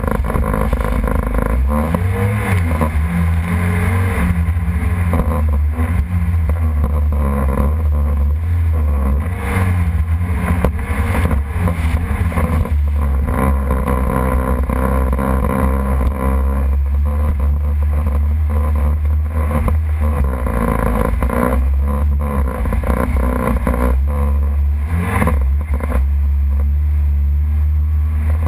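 Jet ski engine running under way, its pitch rising and falling as the throttle changes.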